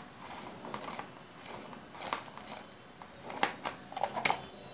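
Scattered small metallic clicks and taps of a hand tool working the 10 mm bolts on a scooter's plastic air filter box, with a few sharper clicks in the last second and a half.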